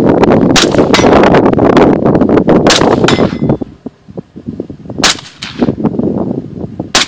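AR-15 rifle fired four times, about two seconds apart. A faint metallic ring follows some shots, typical of hits on a steel plate target. Wind buffets the microphone through the first half.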